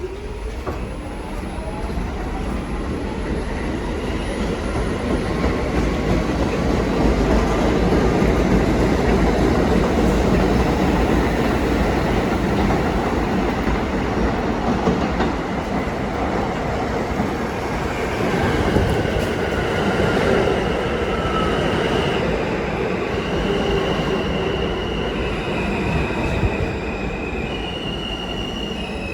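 New York City subway N train running through the station: a loud, steady rumble of wheels on rail with high-pitched wheel squeal. A whining tone rises in pitch in the first couple of seconds, and high steady tones step up and down over the last ten seconds.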